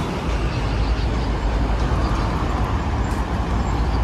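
Steady street traffic noise: motor vehicles running past with a low engine rumble.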